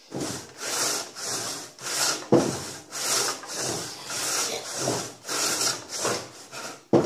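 Homemade pitsaw, an old saw refiled with coarse 22 mm-pitch pitsaw teeth and no rakers, ripping lengthways along the grain of a log by hand. It makes steady rasping strokes, about two a second.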